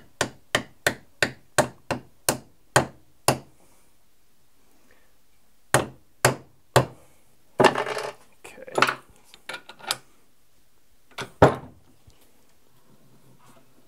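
Brass-headed hammer tapping on a wooden block laid over a steel cufflink held in a machine vise, pressing the cufflink body onto its head: a quick even run of about three taps a second for the first few seconds, then three single blows, a short burst of knocking and rattling, and two last blows near the end.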